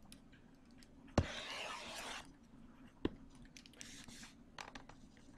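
Quiet room tone with a faint steady hum, broken by two sharp clicks: one about a second in, followed by about a second of soft hiss, and another about three seconds in, with a few fainter ticks after.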